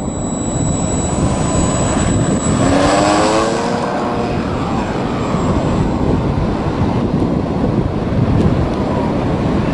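ParkZone T-28 Trojan RC plane's electric motor and propeller whining in flight. There is a steady high-pitched whine, and the pitch climbs briefly about three seconds in.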